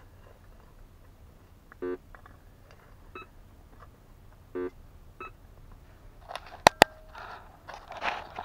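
Two short electronic buzzing beeps, about three seconds apart. They are followed by a pair of sharp clicks close together, the loudest sounds, and then rustling and scraping as the corroded metal bracelets are handled.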